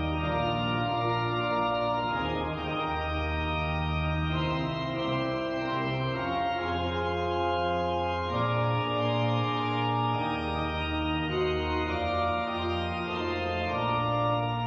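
Organ playing slow, held chords over a bass line, the chord changing every couple of seconds.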